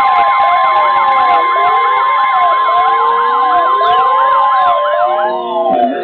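Several weather radios sounding their alert alarms at once: a steady warning alarm tone under overlapping wailing, siren-like sweeps from the radios' built-in alarms. This signals a warning being issued. The alarms cut off near the end.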